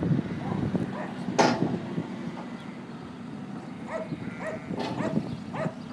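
JCB Loadall telehandler's diesel engine running while the fork and grapple is worked hydraulically, with a sharp clank about a second and a half in. In the second half comes a run of short, pitched sounds about twice a second.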